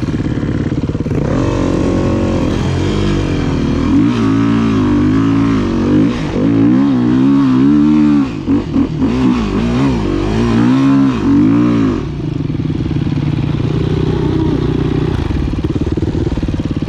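Dirt bike engine revving up and down under load while riding up a sandy climb, with a few quick throttle chops about halfway through. About twelve seconds in it drops to a steady, lower running note.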